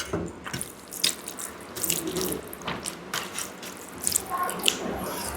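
Close-miked wet eating sounds of rice with dal: irregular squelchy chewing, lip smacks and mouth clicks.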